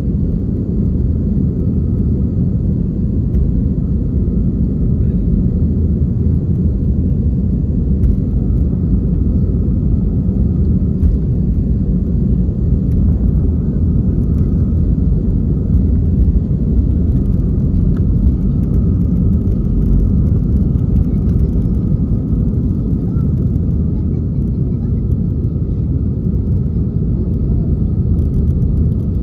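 Steady low rumble of an Airbus A320 in motion, heard from inside the cabin, with a faint steady whine above it.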